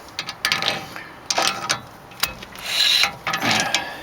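Disc brake rotor being turned with a hand tool in several strokes, the new pads scraping against it with clicks from the tool: the brake is dragging.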